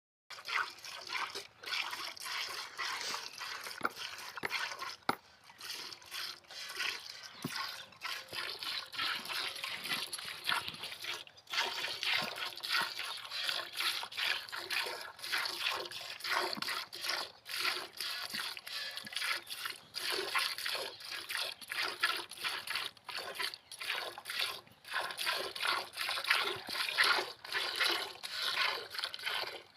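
Cow being milked by hand, fast: short hissing squirts of milk hitting the pail in a quick, even rhythm of a few strokes a second.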